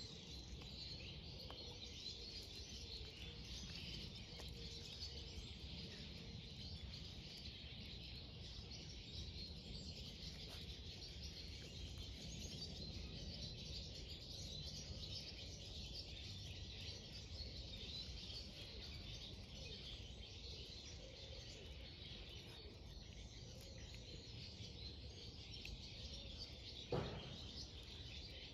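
Faint outdoor background of many small birds chirping and singing, over a steady low rumble. A single sharp click near the end.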